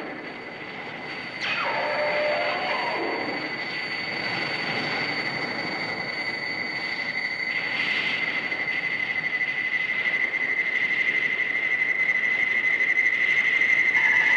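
Recorded train sound effect: a train running on rails, with a brief falling sound about a second and a half in. A steady high-pitched squeal grows gradually louder toward the end.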